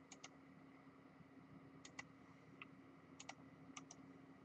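Faint computer clicks, mostly in quick pairs about four times, as a list is selected and copied on a computer, over a low steady hum.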